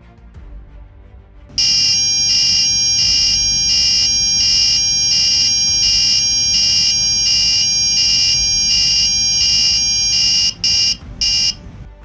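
The piezo buzzer of an Arduino MQ2 smoke alarm sounds a loud, high-pitched continuous tone, starting about one and a half seconds in and ending with two short beeps near the end. It is the alarm going off because the MQ2 gas sensor has detected smoke.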